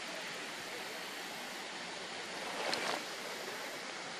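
Steady outdoor hiss like wind or moving water, with one brief louder rush of noise about two and a half seconds in.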